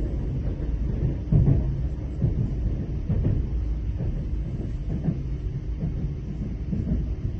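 Train running along the track, heard from inside the carriage: a steady low rumble of wheels and running gear with occasional knocks.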